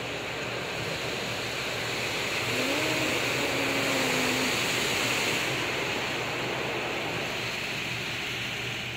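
Automatic car wash spraying water and running its spinning cloth brushes over the car, heard from inside the cabin: a steady rushing hiss over a low hum, swelling toward the middle and easing near the end.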